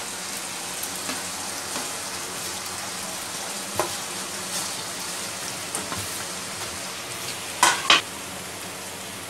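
Hot masala gravy sizzling steadily in a pan on a gas stove as fried besan koftas are added and stirred in with a wooden spatula. Two sharp knocks in quick succession near the end.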